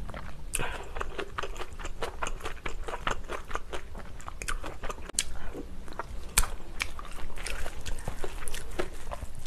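Close-miked chewing of a mouthful of bibimbap mixed with chopped green chilies and fresh vegetables: a run of wet, crunchy mouth clicks and smacks. Near the end a metal spoon scrapes in the stainless steel mixing bowl.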